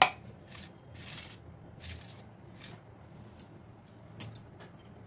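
Kitchen handling noises: a sharp knock right at the start, then a few short, scattered clinks and rustles.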